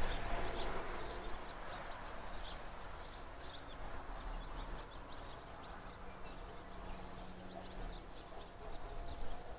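Faint, distant rumble of a rail track-maintenance machine running along the line, fading over the first few seconds. Small birds chirp throughout.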